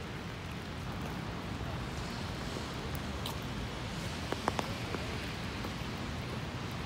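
Steady hiss of rain on a wet city street, with a low rumble underneath and a few sharp clicks about four and a half seconds in.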